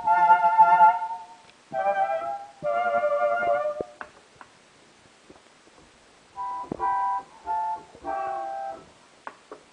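Yamaha DX7s FM synthesizer playing short chords and notes: one chord fades out about a second in, two more follow, then after a pause with a few light clicks come three brief notes near the end.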